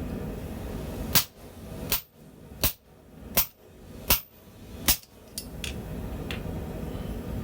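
Hand hammer striking an old forging die, six heavy ringing blows about one every three-quarters of a second, then a few lighter taps.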